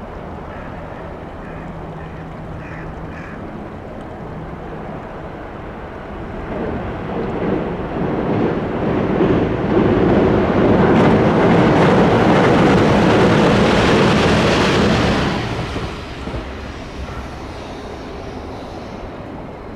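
JR 373 series electric train passing over a steel girder railway bridge: the rumble of wheels and bridge swells from about six seconds in, stays loud for several seconds, then drops away sharply about three quarters of the way through.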